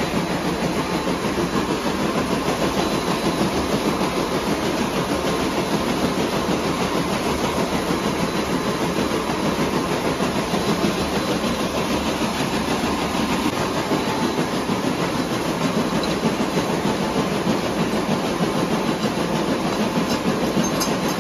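Rotary wire braiding machines running, a steady, dense mechanical clatter of their bobbin carriers weaving copper wire into braid.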